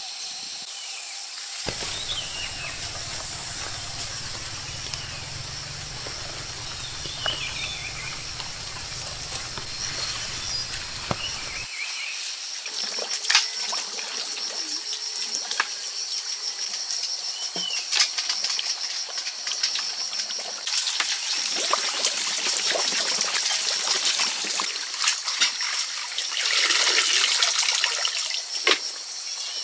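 Outdoor rural ambience: water trickling or dripping, with short bird chirps, a steady high-pitched whine throughout and scattered sharp knocks. A low hum runs through roughly the first third, and a louder rushing patch comes near the end.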